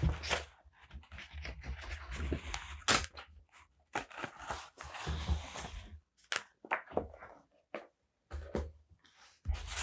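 Paper and stickers being handled for journaling: stretches of rustling and crinkling, broken by sharp clicks and soft thumps against the desk.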